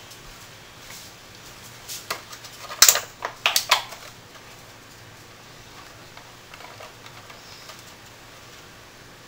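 Kitchen clatter: a quick run of sharp clicks and knocks from things being handled and set down on the counter, about two to four seconds in, over a faint low hum.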